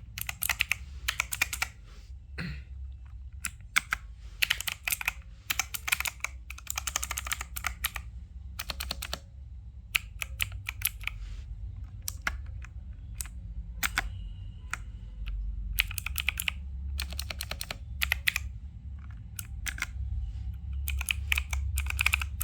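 Typing on a mechanical keyboard with clicky blue switches: bursts of sharp clicks, some quick runs and some single keystrokes, with short pauses between them.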